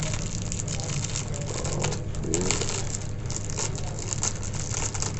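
Small plastic clicks and crinkling as an anti-snoring nasal kit and its packaging are handled and opened, over a steady low hum.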